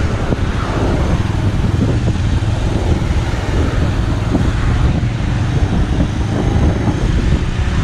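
Motorcycle engine running steadily while riding in city traffic, a constant low rumble mixed with wind and road noise on the microphone.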